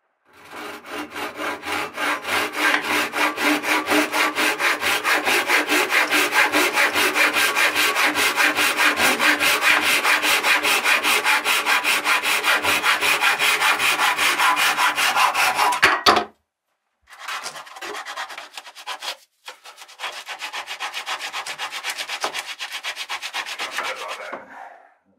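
Japanese pull saw cutting a small strip of mahogany trim in quick, steady strokes, about four a second. The sawing stops briefly twice in the second half, then carries on.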